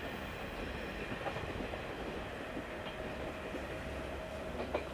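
KiHa 48 diesel railcar train running away down the line: a steady running noise with a few faint clicks from the wheels.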